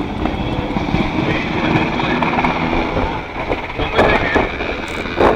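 Sikorsky UH-60 Black Hawk helicopter flying a display pass overhead, its main rotor chopping steadily over the whine of its twin turboshaft engines.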